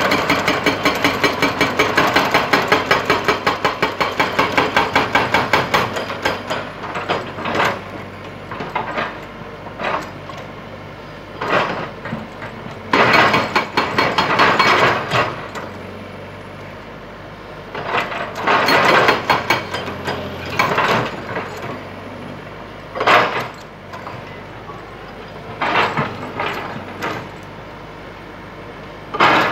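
Excavator-mounted hydraulic breaker hammering rock, its chisel striking in a rapid run for the first six seconds, then in short bursts every few seconds as the rock breaks. The excavator's engine runs steadily underneath.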